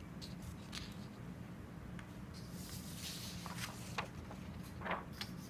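A sheet of paper being handled and slid away on a desk: faint rustling with a few light taps, the sharpest near the end, over a low steady hum.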